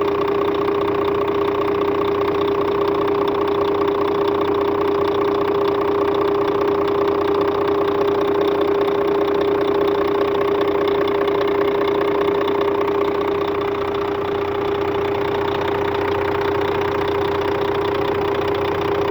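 Scania K400 bus's 13-litre DC13 diesel engine running steadily, with a strong steady tone above the engine noise; this is the engine the customer reports for a strange noise. It becomes slightly quieter about two-thirds of the way through.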